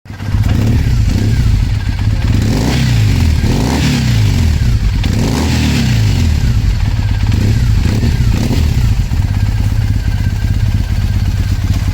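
Triumph Bonneville T100 parallel-twin engine being revved in a series of short throttle blips, each rising and falling back, then settling to a steady idle for the last few seconds.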